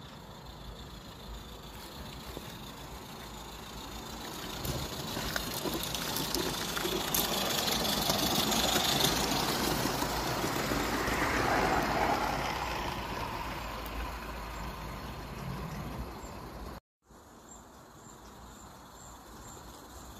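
Accucraft Talgarth live-steam garden-railway locomotive and its coaches running past: a steam hiss with rapid clicking of wheels on the track, building up to its loudest about eight to twelve seconds in, then fading. The sound cuts out for a moment near the end and comes back fainter.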